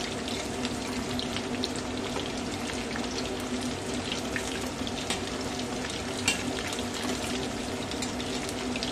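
Chicken pakodas in a besan and cornflour batter deep-frying in hot oil: a steady sizzle with frequent small crackles and pops as they crisp.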